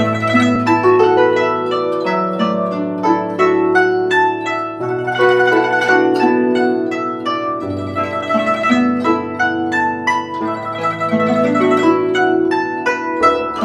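Guzheng (Chinese zither) playing an instrumental melody: many quick plucked notes over longer, held low notes.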